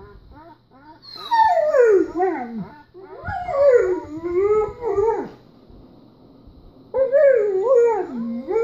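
German Shepherd dog howling: a few short whines, then three long wavering howls, the first sliding down in pitch, with a pause of about a second and a half before the last.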